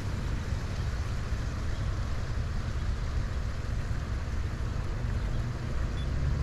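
Wind buffeting the microphone outdoors: a steady low rumble with an even rush above it.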